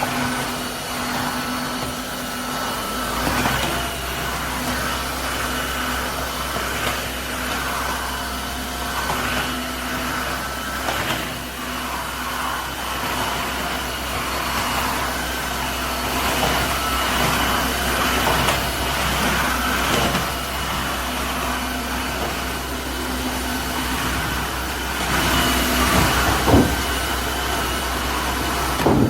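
Tineco Floor ONE S5 cordless wet-dry floor vacuum running, with a steady low hum and a higher motor whine, and a noise over them that keeps shifting as it works.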